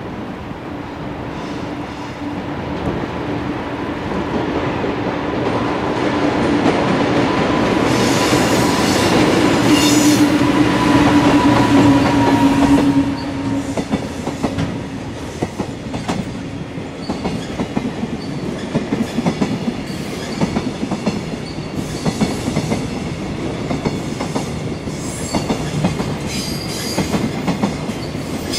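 Electric freight locomotive drawing near with a steady hum that rises and cuts off about halfway through as it passes. The container wagons that follow clatter rhythmically over the rail joints, with bouts of high wheel flange squeal.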